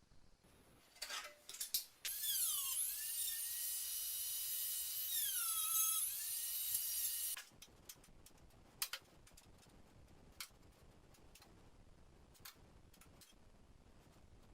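A high-pitched power tool runs for about five seconds, its whine dropping in pitch shortly after it starts and again near the end. Light ticks and taps come before and after it.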